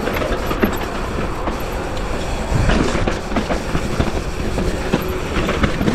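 Commencal Clash hardtail mountain bike rolling fast down a steep, rough dirt trail: tires grinding over dirt and rocks with a steady rush of noise, and the frame and chain rattling in quick, uneven clicks and knocks.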